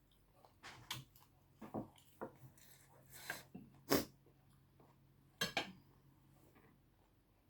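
Close-miked mukbang eating sounds: about six short slurping and chewing noises from eating rice noodles and roast pork, with quiet gaps between them.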